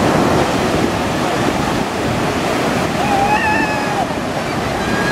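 Ocean surf washing and breaking in a steady rush, with wind on the microphone. A brief high call rises over it about three seconds in.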